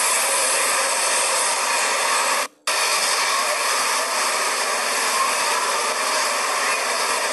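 Steady, even hiss that cuts out for a moment about two and a half seconds in.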